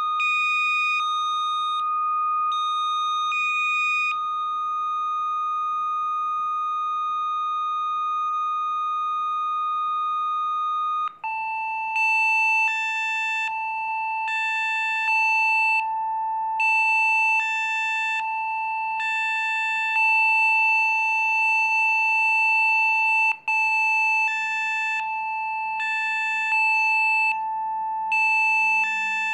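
Electronically generated Rife-frequency tones: a steady high tone with a higher tone beeping on and off about once a second. About eleven seconds in, the main tone steps down to a lower pitch, and higher tones go on cycling on and off in a repeating pattern.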